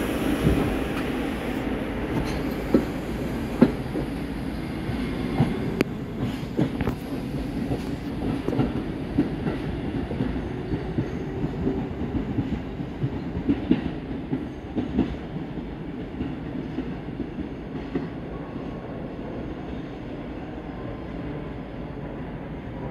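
NYC subway R62A train pulling away and receding down the track. A steady rumble is punctuated by sharp clacks of wheels over rail joints, and the sound fades gradually as the train draws off.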